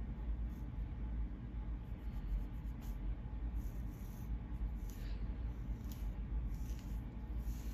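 Long acrylic fingernails scratching through hair on a dry scalp flaked with dandruff, making short, dry, scratchy rasps that come more often in the second half. A steady low hum runs underneath.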